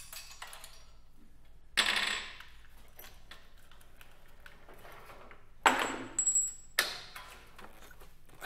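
Sharp metal clinks and rattles as a heavy ion pump is unfastened and lifted off the microscope column. There is one loud clink about two seconds in, then three more close together near the six- to seven-second mark, two of them ringing briefly.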